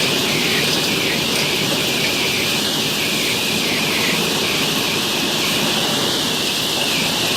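Automatic cage mesh welding machine running: a loud, steady mechanical noise with a strong hiss on top and a rough rumble beneath, without clear separate strokes.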